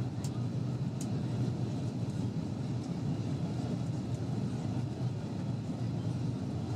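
Steady low rumble inside the cabin of an Airbus A330-200 in flight, heard at a window seat over the wing: its Rolls-Royce Trent 700 engines and the air rushing past the fuselage. Two faint clicks in the first second.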